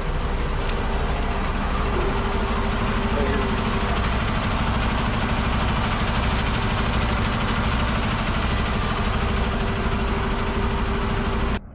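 Heavy diesel truck engine running steadily at idle, heard close beside the truck's front wheel. It cuts off suddenly near the end.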